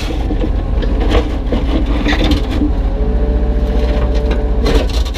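Kubota U35-3 mini excavator's diesel engine running steadily, with knocks and scraping of broken concrete chunks against the bucket and trailer, a louder cluster of knocks near the end.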